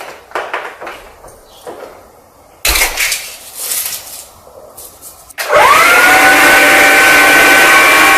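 Dry cereal rattling and clattering as it is scattered onto carpet. A little over five seconds in, the Hoover Linx cordless stick vacuum switches on: its motor spins up with a rising whine, then runs at a loud, steady, high whine.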